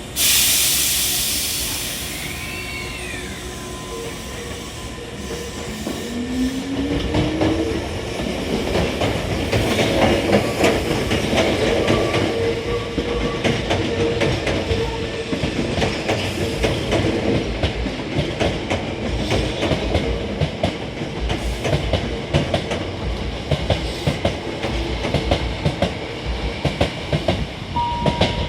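Hankyu 1000 series electric train pulling out of a station. A loud hiss of air starts suddenly and fades over about two seconds. Then a rising whine comes from the motors as the train accelerates, followed by a steady hum and repeated clacking of wheels over rail joints as the cars roll past.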